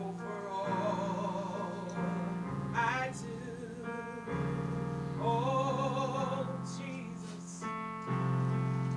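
A woman singing a slow gospel solo with wide vibrato on long held notes, over sustained keyboard chords.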